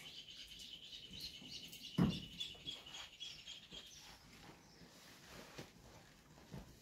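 A high, rapid chirping trill from a small animal, steady in pitch, fading out about four seconds in. A single thump about two seconds in, with faint rustling around it.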